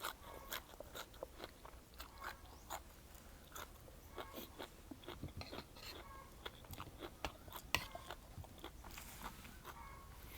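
A person chewing and crunching a mouthful of spicy seafood papaya salad close to the microphone: many short, irregular crunchy chews, a few a second.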